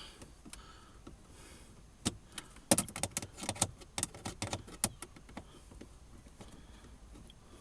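A burst of sharp, irregular clicks and taps, a screwdriver working on the two Phillips screws that hold the OBD-II connector and knocking against the metal and plastic around them, for about three seconds in the middle, with quiet handling before and after.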